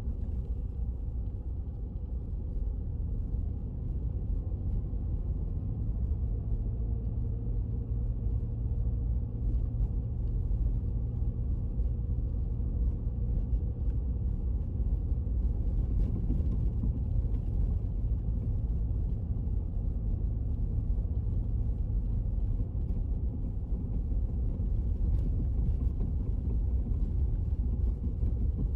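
Car driving along a snow-covered street: a steady low rumble of engine and tyres, growing slightly louder a few seconds in.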